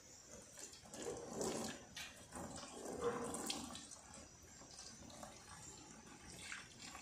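Liquid poured from a small bottle over a silver ornament, splashing and dripping into a plastic tub. It is faint and comes in uneven spurts.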